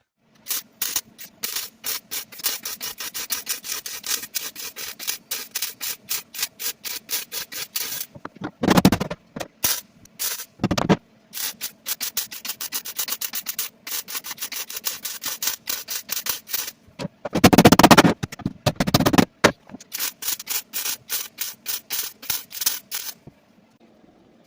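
Welding a replacement steel floor pan into place, many short tack and spot welds in quick succession. A few welds run longer and louder, the longest about two seconds, in the second half.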